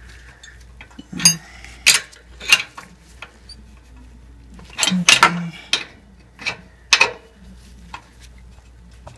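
Steel wrench and stud extractor clinking together as the wrench is fitted onto the tool: a string of separate sharp metal clinks, with a cluster about halfway through.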